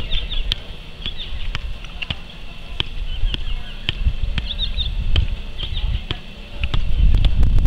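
Soccer ball being juggled on the feet: a soft kick about every half second, with small birds chirping in the background. A low rumble underneath grows louder near the end.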